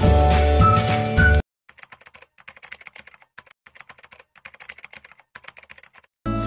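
Computer keyboard typing clicks, quick and even, over about five seconds as on-screen text is typed out. Music plays for the first second and a half and stops abruptly, and new music starts just before the end.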